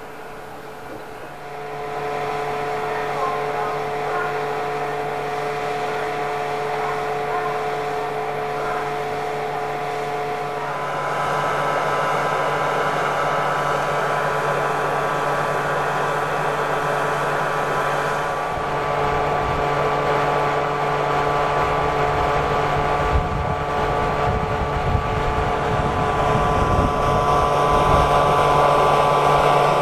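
JR Hokkaido 711 series AC electric multiple unit pulling out of the station: a steady electric hum and whine from its equipment, the whining tones shifting to a higher set about ten seconds in as it gets louder, with the wheels rumbling over the rails near the end.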